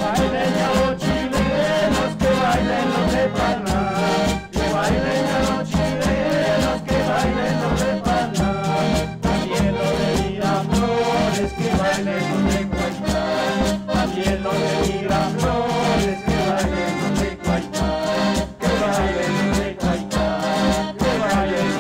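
Instrumental passage of traditional Andean dance music: a steady pulsing bass beat under a wandering melody line.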